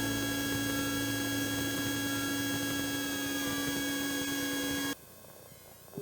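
Background music holding a sustained chord of steady tones, cut off abruptly about five seconds in.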